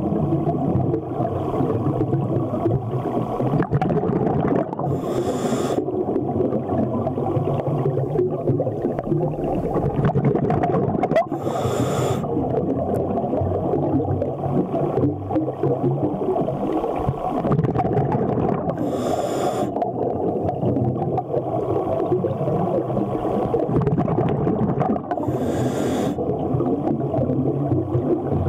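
Underwater audio on a scuba dive: a steady muffled rumble, broken four times, about every seven seconds, by a short hissing burst of the diver's exhaled bubbles leaving the regulator.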